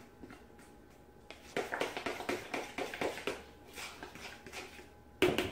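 Pancake batter being stirred by hand in a mixing bowl: a run of wet strokes and scrapes, about three or four a second, starting after a quiet second and growing fainter, then a sharper knock near the end.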